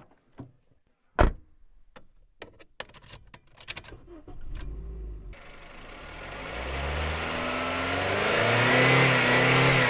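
2015 Honda Civic: a few sharp clicks and knocks, then the engine starts about five seconds in and is revved, its note rising steadily and held high near the end.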